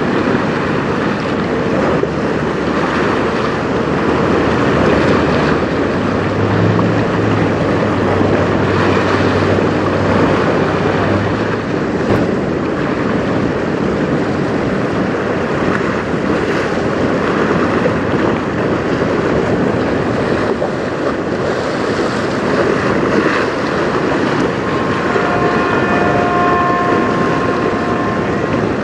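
Strong wind buffeting the microphone over choppy river water: a loud, steady rushing noise. A faint low hum runs for a few seconds partway through, and a brief higher tone sounds near the end.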